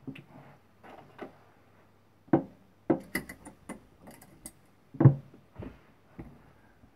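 Steel-tip darts being pulled out of a bristle dartboard and clicking together in the hand: a string of sharp clicks and knocks, with a heavier thud about five seconds in.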